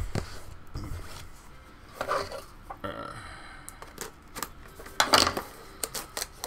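A small cardboard blind box being handled and opened, with light taps, clicks and scrapes, and a short grunt-like vocal sound about five seconds in.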